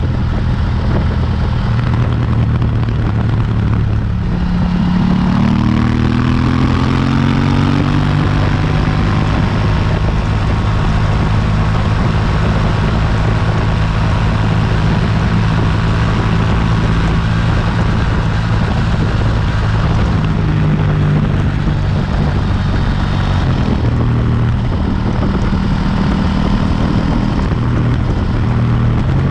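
KTM 790 Duke's parallel-twin engine through its stock exhaust while riding. The revs climb about four to eight seconds in, then the engine holds a fairly steady note at cruising revs.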